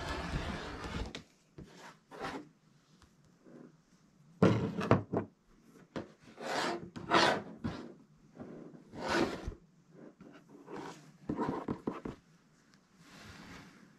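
Quilt fabric and batting being shifted and handled on a work surface: a series of separate rustles and rubs with a few light knocks, the loudest about four and a half seconds in.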